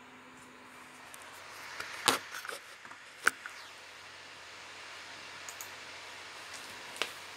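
A few sharp clicks over a steady hiss that slowly grows louder; the loudest clicks come about two and three seconds in, with another near the end.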